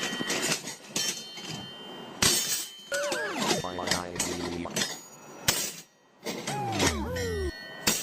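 A rapid collage of assorted sound effects: clinks and crashing impacts, with warbling tones that slide up and down in pitch about three seconds in and again near the end, and a brief hush just before the second set.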